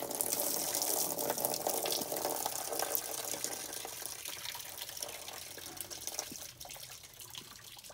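Engine coolant pouring from the pulled lower radiator hose and water pump neck into a drain pan, a steady splash that tapers off as the flow dies down.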